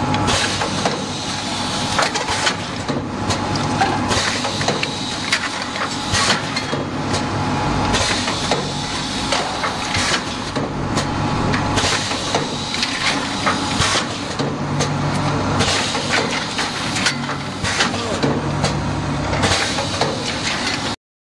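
Four-lane cup filling and sealing machine running: a steady mechanical din with frequent, irregular clacks and knocks from its moving parts over a low hum. It cuts off suddenly near the end.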